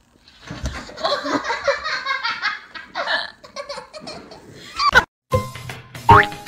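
A person laughing hard in a long run of rapid laughs for about four seconds. About five seconds in there is a sharp click and a brief silence, then music starts, with a rising boing sound effect near the end.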